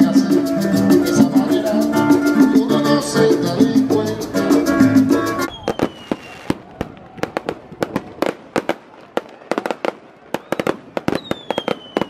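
Live Latin guitar music, which cuts off abruptly about five and a half seconds in to aerial fireworks: rapid, irregular bangs and crackles, with a falling whistle near the end.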